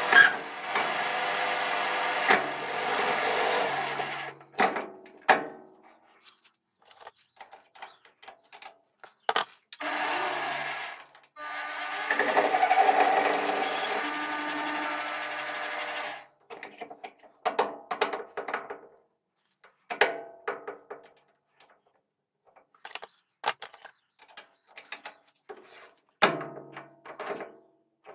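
Holzmann ED750FD benchtop metal lathe running while a twist drill bores into a brass workpiece, in spells: one over the first few seconds, a short one near ten seconds, and a longer one from about eleven to sixteen seconds in. Between and after the runs come irregular clicks and knocks of metal parts and tools being handled.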